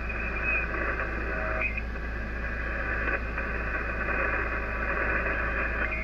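Icom IC-756PRO HF transceiver's receiver audio on the 40-metre band in lower sideband: a steady hiss of band noise and static, carrying a few faint steady whistles, while the main tuning knob is turned off frequency and back.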